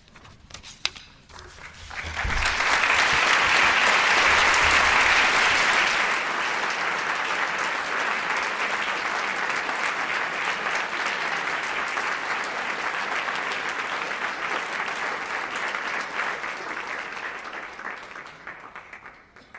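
Audience applauding. A few scattered claps come first, then it swells about two seconds in, is loudest for the next few seconds, carries on evenly and fades away near the end.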